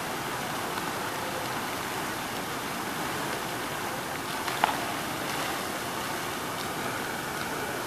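Indoor jet fountain: thin arcing water jets splashing down onto a granite pool, making a steady rushing hiss. A single brief click stands out about halfway through.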